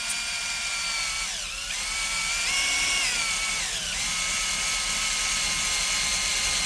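Electric drill boring a 4.5 mm hole in a stainless steel handrail tube, run slowly so the bit does not overheat. Its motor whine dips in pitch twice, a little over a second in and again near four seconds, as the trigger is eased, then holds steady.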